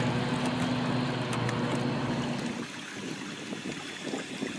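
Electric trolling motor humming steadily as it pushes the small barrel boat along; about two and a half seconds in the hum stops, leaving water lapping and small splashes.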